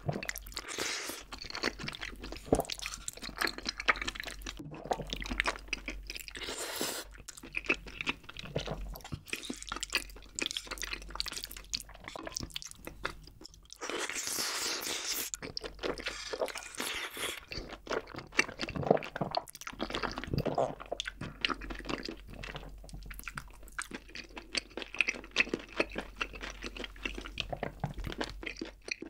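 Close-miked mukbang eating: wet chewing and smacking of glass noodles and chicken in creamy rose sauce, with a long noodle slurp about halfway through.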